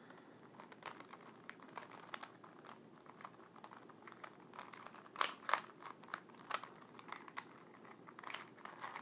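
Plastic Rubik's cube being turned by hand: irregular quick clicks and clacks as the layers rotate, with a louder flurry of turns about five seconds in.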